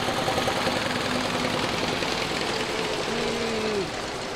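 Pre-1905 veteran car's early engine chugging past with a rapid, knocking beat, much like a stationary engine. A whining tone falls in pitch and fades near the end as it goes by.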